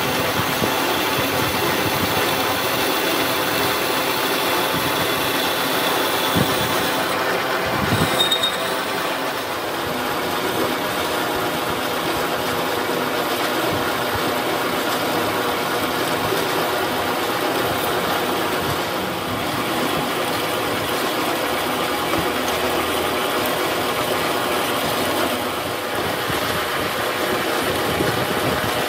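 Metal lathe running steadily while a boring tool cuts the inside of a spinning steel tube, a machine hum with a thin high whine that stops about seven seconds in.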